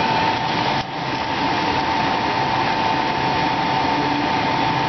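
Egg rolls deep-frying in a pot of hot oil: a steady sizzle, with a steady high tone running under it.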